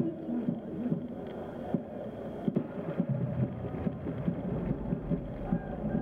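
Indistinct murmur of many spectators' voices, with a low rumble underneath that swells about five seconds in.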